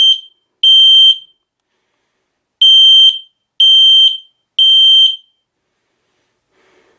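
Smoke alarm sounding under test: loud, high-pitched half-second beeps in groups of three with a pause between groups, the standard temporal-three alarm pattern. The beeping stops about five seconds in as the test ends.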